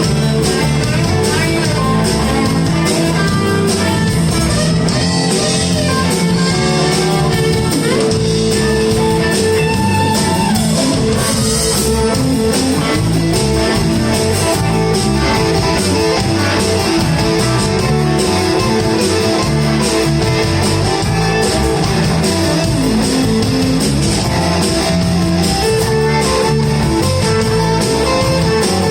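Live electric blues band playing an instrumental break: electric guitar over bass and drums.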